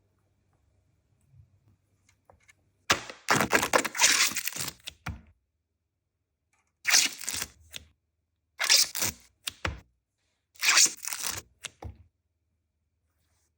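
Crackling, tearing handling noises in four bursts, the first and longest lasting about two seconds, the kind made by tearing and crinkling food packaging or paper.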